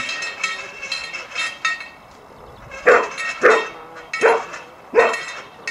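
Collie barking: four sharp single barks in the second half, spaced a little over half a second apart, after fainter sounds in the first two seconds.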